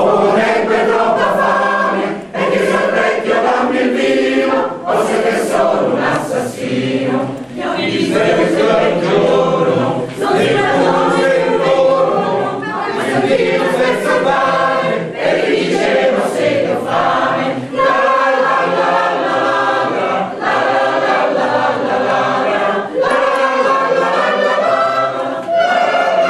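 Mixed choir of women's and men's voices singing in Italian in several parts, with brief dips between phrases.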